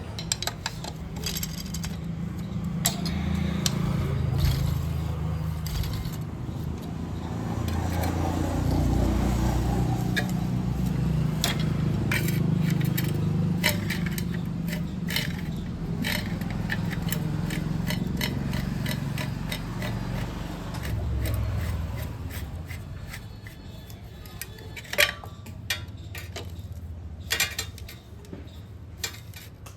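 Metal clinks, taps and scrapes of hand tools and motorcycle engine parts being handled during clutch-side reassembly, over a steady low hum. The clicks are scattered throughout, with a few sharper, louder ones near the end.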